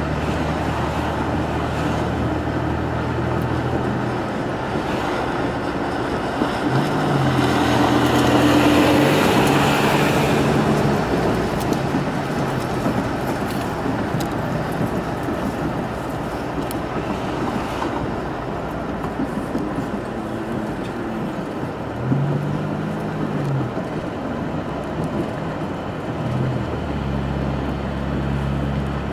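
Engine and road noise of a car driving in traffic, heard from inside the cabin. It swells louder and brighter about seven to ten seconds in.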